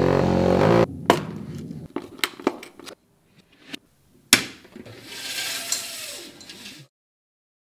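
Fitting a Venetian blind: a loud low hum for about the first second, then several sharp clicks and knocks of the blind's brackets and fittings. A lighter rustling rattle of the slats follows as the blind is worked, and the sound cuts off abruptly near the end.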